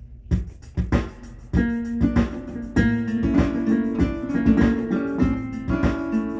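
Instrumental song intro: piano or electric keyboard chords over a steady beat, filling out about a second and a half in.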